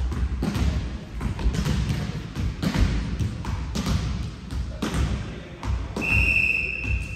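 Basketball thudding and bouncing on an indoor court floor, in irregular knocks that echo in the hall. About six seconds in, a single long, steady, shrill whistle blast begins.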